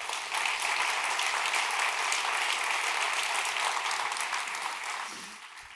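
Large audience applauding, a dense crackle of many hands clapping at once that holds steady and then dies away near the end.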